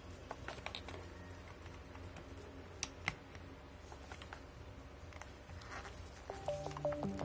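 Small handling clicks as a plastic power bank is turned in the hands and a USB cable is pushed into its port, with two sharper clicks about three seconds in, over a low steady hum. Background music starts near the end.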